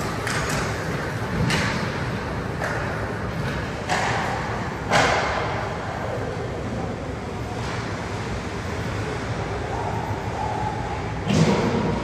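Ice hockey game sounds echoing in a rink: about half a dozen sharp knocks and scrapes of sticks, puck and skates on the ice and boards over steady arena noise, the loudest about five seconds in and near the end.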